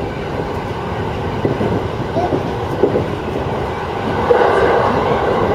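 JR East 209-series electric train running along the track, a steady rumble of wheels on rail heard from inside the train, growing a little louder about four seconds in.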